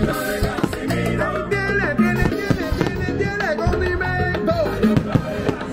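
Salsa music playing loudly, with a repeating bass line, steady percussion and a melody line over it.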